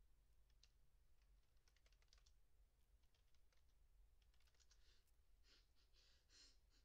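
Near silence with faint, scattered light clicks, some in quick runs, and a few soft rustles near the end.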